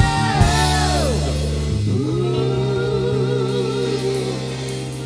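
Live band music from pianos and a drum kit. Drum hits sound in the first half second. Then held notes slide down in pitch, rise again about two seconds in and are held with a wavering vibrato, growing quieter.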